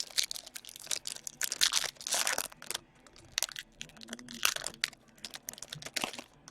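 Foil trading-card pack wrapper being torn open and crumpled by hand, in irregular crinkling, crackling rustles.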